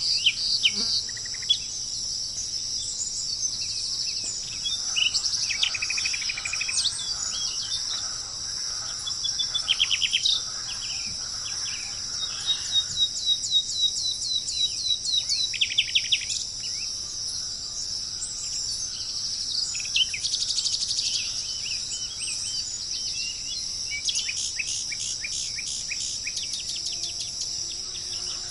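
Wild birds calling in quick series of repeated chirps and trills over a steady, high-pitched insect drone, with the busiest bird calling about halfway through and again near the end.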